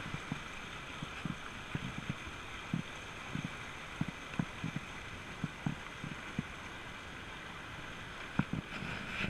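Mountain stream rushing steadily over rocks, with soft, irregular low thumps close to the microphone.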